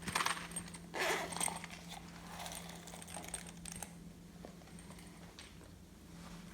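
Slime being squished and kneaded by hand, making sticky crackles and small clicks that are loudest at the start and again about a second in. A steady low hum runs underneath.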